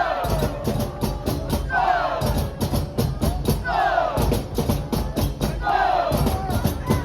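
Football supporters chanting in unison to a steady drumbeat, a short falling chant phrase repeated about every two seconds.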